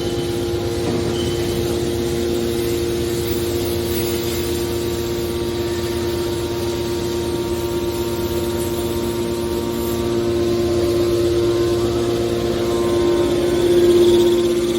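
Hydraulic metal baler's power unit running, its motor and pump giving a steady whining hum that grows louder in the last few seconds.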